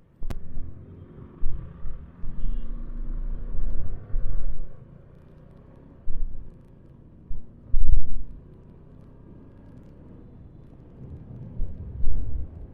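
Motorcycle riding on the road, heard through an action camera's microphone as uneven gusts of low wind rumble over a faint engine note. There are two sharp clicks, one just after the start and one about eight seconds in.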